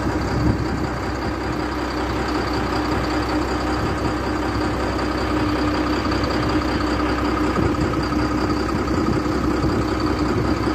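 Vehicle engine running steadily, heard from inside the cab: an even drone with a constant hum.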